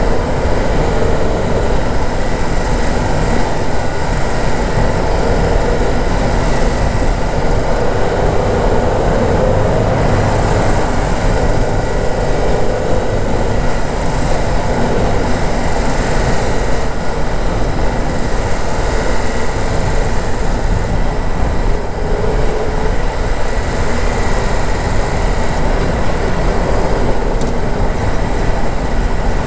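Car driving along a rough unpaved track, heard from inside the cabin: steady engine and tyre noise over the uneven surface.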